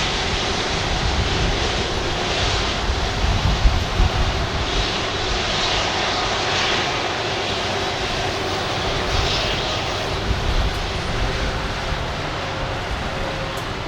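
Airbus A330-200 jet engines running at low power as the airliner taxis after landing. It is a steady rumble with hiss that fades slightly near the end.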